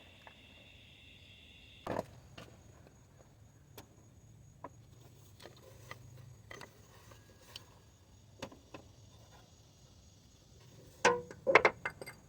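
Scattered clicks and light knocks from hand tools and metal parts being handled on the engine's idler pulley, with a quick run of louder clicks near the end.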